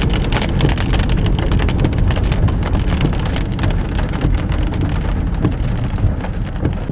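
Heavy rain hitting a stopped vehicle's roof and glass, a dense, constant patter of drop strikes over a low, steady rumble.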